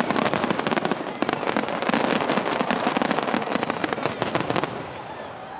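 Fireworks display: a dense barrage of rapid cracks and bangs from many shells bursting together. It thins out and dies down about four and a half seconds in.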